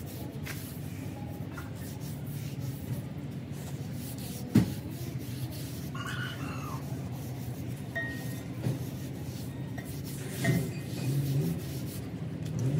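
Rubbing and scraping from hand work on a crusher bearing, with one sharp knock about four and a half seconds in and a few lighter clicks, over a steady low hum.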